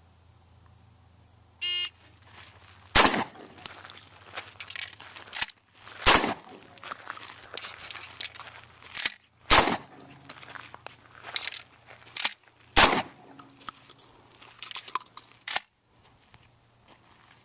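A short electronic start beep, then pump-action shotgun shots, the four loudest about three seconds apart. Quicker, quieter sharp clatter and cracks come between them until near the end.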